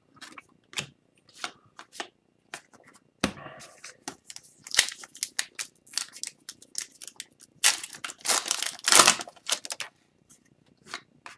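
Foil wrapper of an Upper Deck hockey card pack being torn open and crinkled by hand: a run of short crackling rips, loudest in a dense cluster about eight to nine and a half seconds in.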